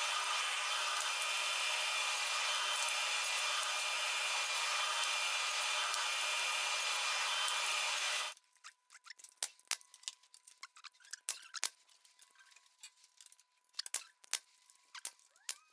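A power tool runs steadily at an even pitch and cuts off abruptly about eight seconds in. Scattered light clicks and taps follow.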